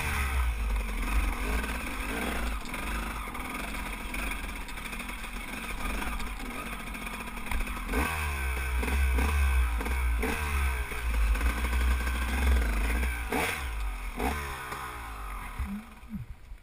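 Enduro dirt bike engine running under load on a rough trail, the revs rising and falling again and again as the throttle is worked, with rattling from the bike over rocky ground. The engine quiets over the last second or two.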